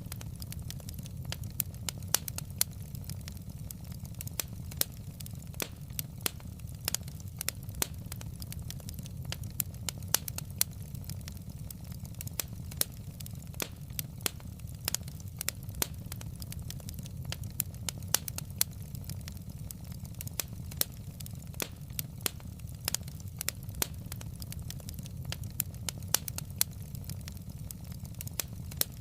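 Burning logs in a fireplace crackling, with frequent irregular sharp pops over a steady low rumble.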